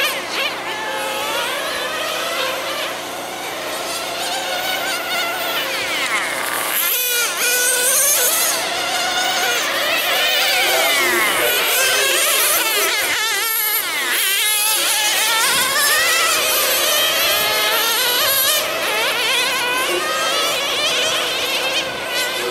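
Several nitro-powered RC sedans' small two-stroke glow engines buzzing at high revs, overlapping, their pitch rising and falling again and again as the cars accelerate and brake around the circuit.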